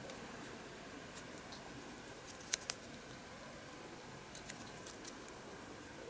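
Scissors snipping: a pair of sharp snips about two and a half seconds in and a few more around four and a half seconds.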